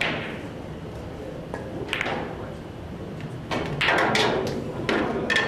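A pool cue strikes the cue ball sharply right at the start. A single ball-on-ball click follows about two seconds in, then a cluster of clacks and knocks near the end as the balls collide and hit the cushions.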